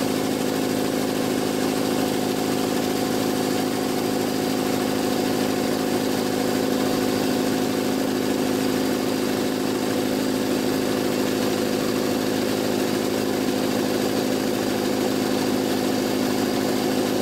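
Jenny electric air compressor's motor and pump running steadily, pumping up the tank as pressure builds past 60 psi, with a steady hum.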